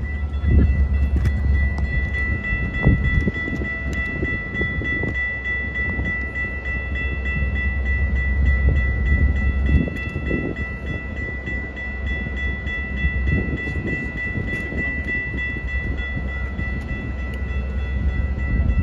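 Canadian Pacific 2816, a 4-6-4 Hudson steam locomotive, running with a steady deep rumble and irregular low thuds, over a steady high-pitched whine.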